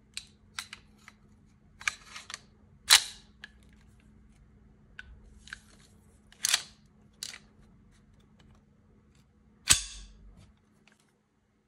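Metal clicks and clacks from a Denix M1911A1 replica pistol being handled, with its magazine put in and its slide worked. Small clicks and a short rattle are broken by three loud, sharp clacks, about three, six and a half and nearly ten seconds in; the last has a dull thud and a brief ring.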